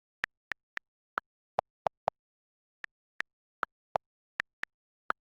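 A sparse run of about thirteen short, sharp pitched ticks at uneven spacing, at roughly three different pitches, with dead silence between them.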